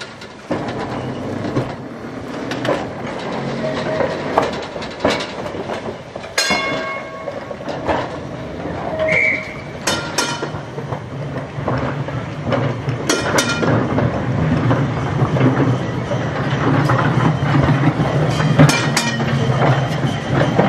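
Vintage electric tramcar running on street track: a steady rumble with wheels clicking over the rail joints, and two short, high-pitched squeals of the wheels on the rails, about six seconds in and again about thirteen seconds in.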